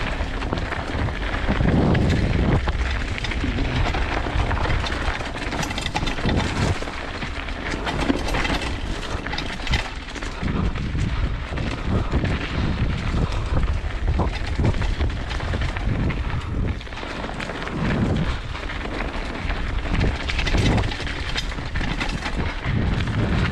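Mountain bike riding down a dirt trail: steady wind buffeting and a low rumble of tyres over the ground, with many small knocks and rattles as the bike runs over bumps.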